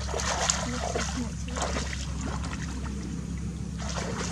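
Water splashing and dribbling in scattered small bursts as hands work through shallow water catching fish, over a steady low hum.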